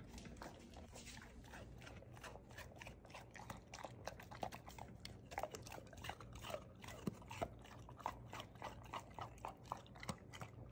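Golden retriever eating wet raw ground meat from a ceramic slow-feeder bowl: faint, irregular wet chewing and smacking clicks, several a second, more frequent after about three seconds.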